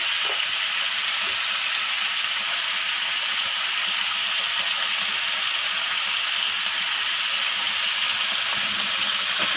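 Diced chicken pieces sizzling steadily in hot oil in a nonstick frying pan.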